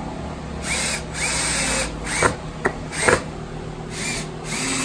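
Cordless drill driving big wood screws into plywood and 2x6 lumber in a series of short stop-start bursts, its motor whine climbing in pitch as each burst spins up.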